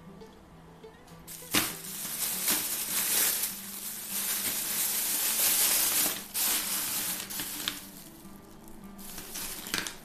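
Thin plastic bag crinkling and rustling as hands open it and handle the frozen peppers inside. The crinkling starts suddenly about a second and a half in and dies down after about six seconds, with a few more crinkles near the end. Faint background music plays underneath.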